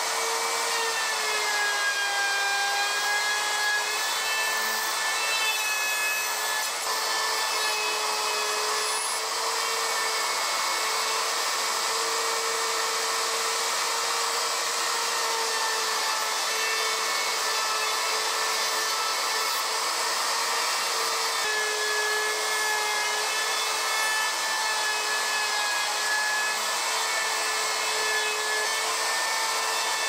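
Ryobi handheld router running at full speed while cutting away the background wood of a carved sign: a steady high whine that wavers slightly in pitch as the bit bites in.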